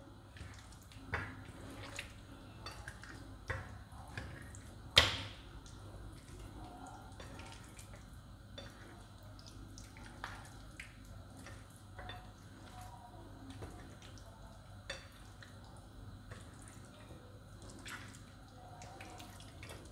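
A hand squishing and rubbing raw chicken wings in an oily spice marinade in a glass bowl: faint, irregular wet squelches and small clicks, with one sharper click about five seconds in.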